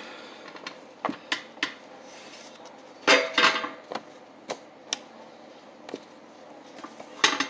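Metal bundt pan knocking and clattering against a serving plate as a hot cake is turned out of it: a string of separate knocks, the loudest cluster about three seconds in.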